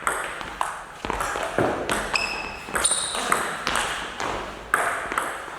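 Table tennis rally: the ball clicking sharply off bats and table, about two hits a second.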